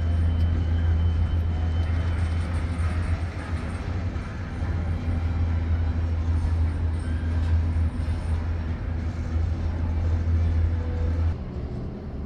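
Steady low rumble of a Disney Skyliner gondola cabin travelling along its cable.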